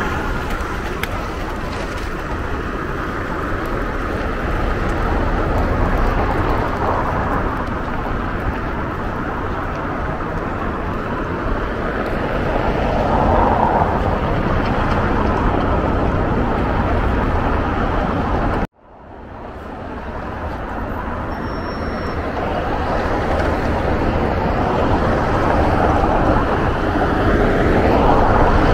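Steady city street traffic noise, with vehicles swelling past now and then. About two-thirds of the way through the sound cuts out abruptly and fades back in.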